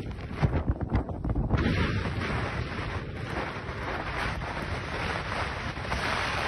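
Wind blowing against the microphone, with a spell of heavy low buffeting about half a second in that lasts about a second.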